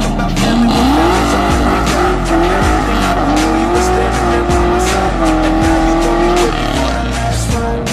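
1995 Ford Mustang GT's V8 revving hard on a launch with the rear tires spinning. A long tire squeal rises about half a second in, then holds with small jumps in pitch and fades near the end.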